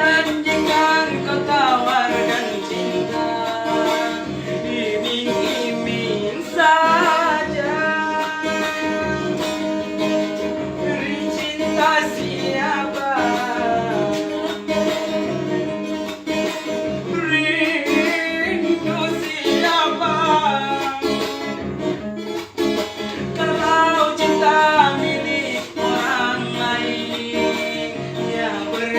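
Singing with guitar accompaniment, the voice gliding and bending through the melody.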